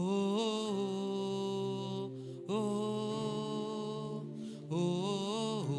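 Slow worship singing: a voice holds long, drawn-out "oh" notes in three phrases, each sliding up at its start and then sustained.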